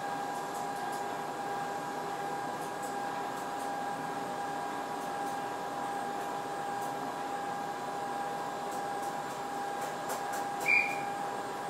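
Toyohashi Railway 1800 series electric train standing at a platform, its onboard equipment giving a steady electrical whine over a low hum. A single short high chirp comes near the end.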